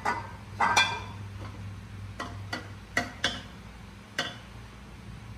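Light knocks and clicks as a glass oil bottle is set down on the counter and a non-stick frying pan is handled on a gas hob's grate. The clicks are scattered and the loudest come about a second in, over a low steady hum.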